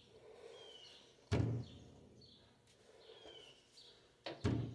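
A few sharp knocks from handling appliance parts: one about a second in and two close together near the end. Birds chirp faintly throughout.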